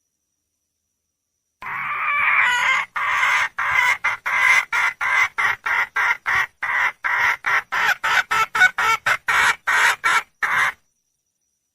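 Red junglefowl hen calling, which the uploader presents as calling for a male: after about a second and a half of silence, one longer note, then a rapid run of short clucking notes at about three a second, stopping a second before the end.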